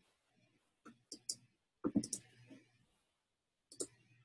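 Computer mouse clicking: a few short clicks in small clusters about a second in, near two seconds in and again near the end, with a low hum under them.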